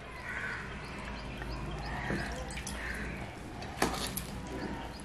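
A bird cawing, crow-like, about three calls, with one sharp click a little before four seconds in.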